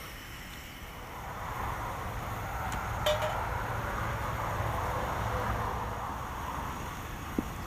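Portable gas-canister camping stove burning with a steady rushing hiss once lit. About three seconds in, a metal pot clinks as it is set on the burner.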